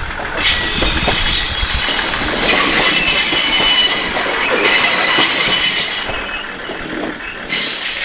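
Diesel railcar passing close by on the track, a loud rumbling run of wheels and running gear with steady high squealing tones over it; it cuts off suddenly at the end.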